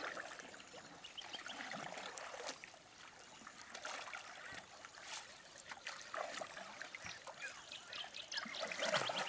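Canoe paddles dipping into and pulling through calm water, with small splashes and water trickling off the blades.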